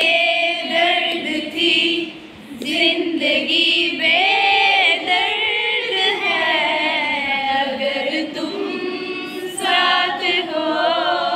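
A group of women singing a song together, unaccompanied.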